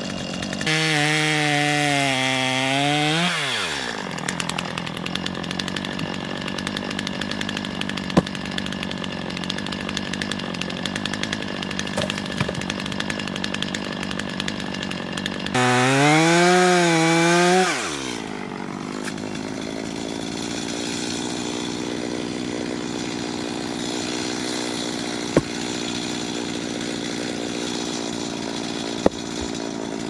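Gas chainsaw cutting firewood logs. It is run at high revs for about three seconds at the start and again for about two seconds past the middle, each time dropping back with a falling pitch, and runs steadily at lower revs in between and afterwards. A few sharp knocks are heard.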